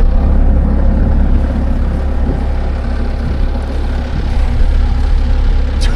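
An engine running steadily with a deep, even rumble.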